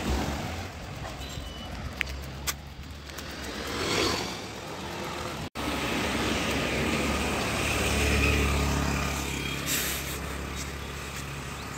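Motor vehicles passing on a road, their engines a steady low hum that swells twice, loudest about eight seconds in, with a brief cut in the sound midway.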